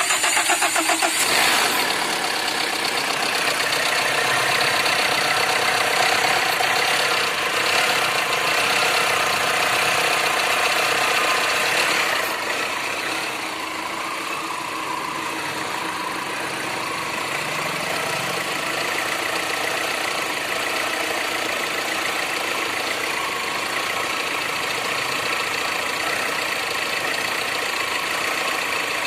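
Tata Indica car engine with about 190,000 km on it, running. It is louder for roughly the first twelve seconds, then settles to a slightly quieter, steady idle.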